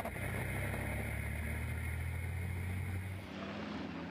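MAN race trucks' diesel engines running with a steady low drone; about three seconds in the sound changes to a quieter, more distant truck engine.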